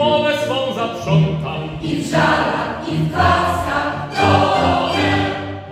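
Mixed choir singing, with violins playing alongside.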